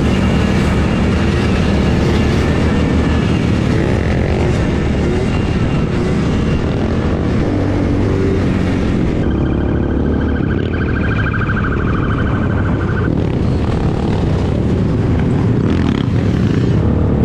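Several quad ATV engines running together at road speed, a steady dense engine drone. Around the middle, a higher buzzing engine note rises above the drone for about four seconds.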